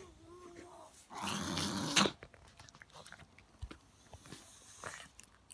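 Chihuahua reverse sneezing: a loud, rough, rapid gasping through the nose lasting about a second and cutting off abruptly, followed by small clicking mouth sounds and a fainter second gasp near the end.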